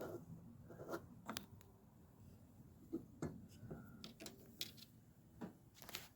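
A few faint, scattered clicks and light taps from hands handling wiring-harness plugs and wires.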